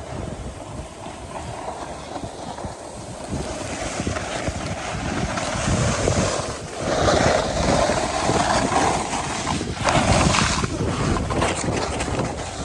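Wind rumbling on the phone's microphone at skiing speed, mixed with the hiss and scrape of skis on groomed snow. The noise grows louder from about a third of the way in, with two stronger swells of scraping around the middle and again a few seconds later.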